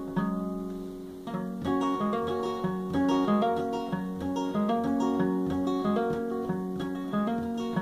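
Acoustic guitar played as an instrumental song intro: a chord rings first, then from about a second in a steady pattern of picked bass and melody notes, several a second.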